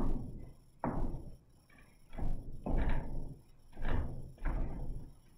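Feet thumping on the studio floor during boxing shuffles and step-backs: about six thuds, some in quick pairs, each with a short room echo.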